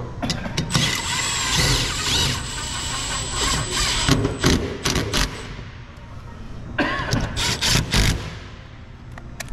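Cordless drill/driver driving fasteners into a steel sign bracket. It runs in two bursts, a long one of about three seconds early on and a shorter one near the end, with a few sharp clicks between them.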